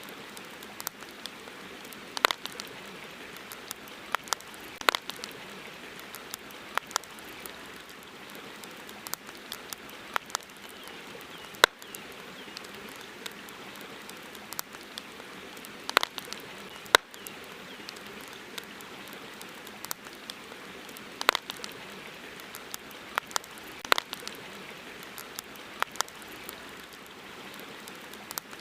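Campfire crackling, with irregular sharp pops, a few of them loud, over a steady hiss of flowing river water.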